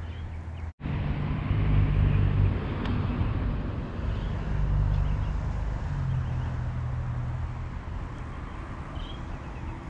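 Low, steady engine drone with a slight shift in pitch partway through, heard after a brief dropout in the sound under a second in.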